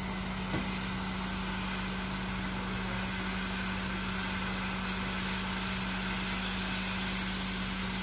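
Hot-air SMD rework station blowing steadily: a constant rush of air with a low hum, as it reflows solder to fit a small coil onto a motherboard.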